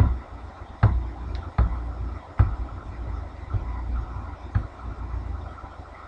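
About five sharp single clicks, a little under a second apart at first and then one more later, over a low steady hum: key presses on a computer keyboard while code is paged up on screen.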